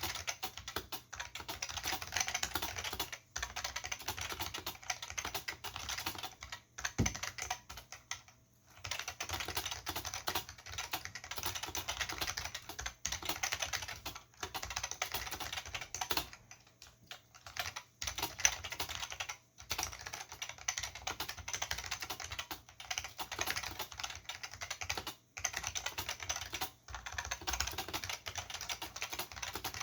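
Continuous typing on an Olivetti M15 keyboard with Futaba MA mechanical switches and PBT keycaps: a dense stream of key clicks, broken by short pauses every few seconds.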